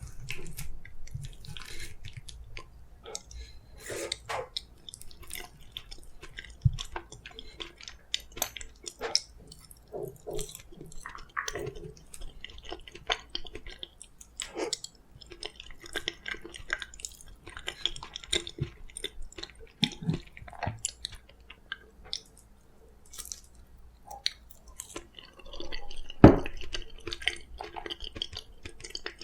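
Close-up wet chewing and mouth sounds of someone eating soft steamed kabocha squash, in irregular bursts of small clicks and smacks. A single sharp knock stands out about 26 seconds in.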